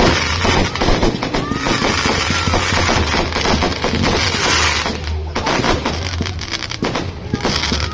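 Fireworks going off in a dense, continuous crackle of rapid pops, with no pause between them.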